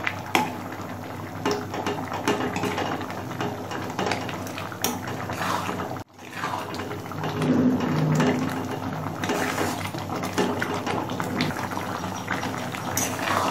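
Thick sugary fruit chutney bubbling in a metal kadai while a metal spatula stirs and presses the fruit pieces, with repeated short scrapes and taps against the pan. The sound cuts out briefly about six seconds in.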